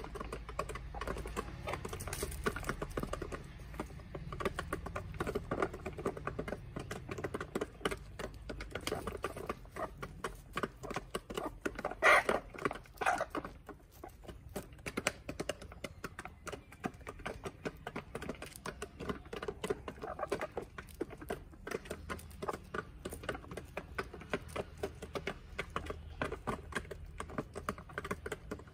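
Chickens pecking feed off dirt ground, a dense, irregular patter of quick beak taps. One brief louder sound comes about twelve seconds in.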